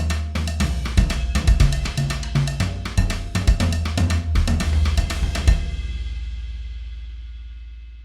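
Sampled alt-rock drum kit from the EZdrummer 3 Alt-Rock EZX library playing a busy groove over a low bass line. The groove ends on a final hit about five and a half seconds in, which rings out and fades away.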